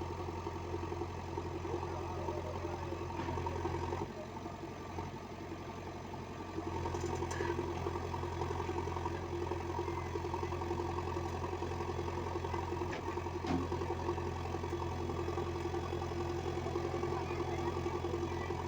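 Diesel engine of a JCB machine running steadily. It eases a little about four seconds in and picks up again a couple of seconds later.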